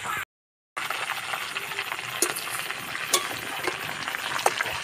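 A whole marinated chicken deep-frying in oil in a steel karahi, with a steady sizzle. A few sharp clicks come from the wire skimmer and spatula against the pan as the chicken is turned. The sound drops out briefly near the start.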